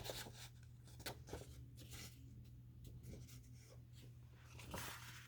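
Faint scattered rustles and light scratches of paper being handled, with a slightly louder rustle near the end.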